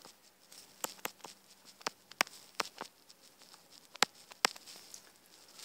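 Light, sharp ticks of handwriting strokes landing on a tablet's touchscreen, about a dozen irregular taps as words are written out.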